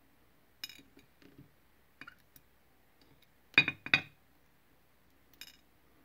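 Tweezers and small lock pins and springs clinking against metal as a pin-tumbler rim cylinder is reloaded with its pins: a few light clicks, then two sharper clinks close together a little past halfway, and one faint click near the end.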